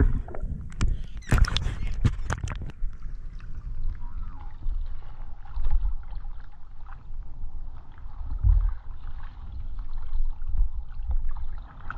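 Sharp clicks and crackles underwater for the first few seconds. Then, at the sea surface, water sloshing and lapping around the camera with low rumbles that swell now and then.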